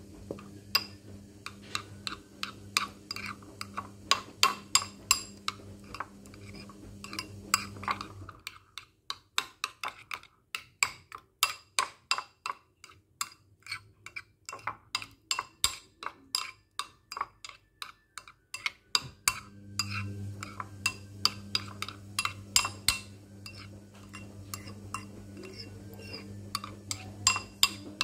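Metal spoon clinking against a ceramic bowl while stirring thick yogurt, about two or three clinks a second. A low steady hum underneath stops about eight seconds in and comes back near twenty seconds.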